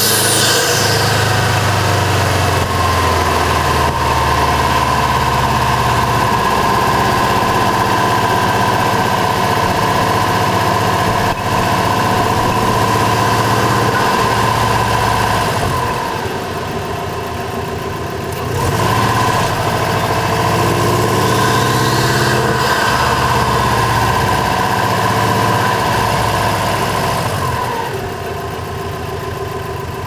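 Turbocharged 2.5 L Subaru flat-four in a 2002 WRX running while driving, heard close up from inside the engine bay. Its note rises and falls with a steady high whine over it. It drops back for a couple of seconds about sixteen seconds in, picks up again, and eases off near the end.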